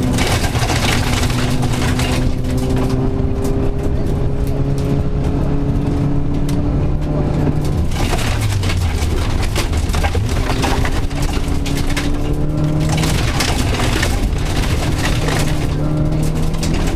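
Rally car engine heard from inside the cabin, running hard under load with its revs climbing and dropping through gear changes, the largest dip coming about eight to ten seconds in. Gravel crackles and rattles against the car throughout.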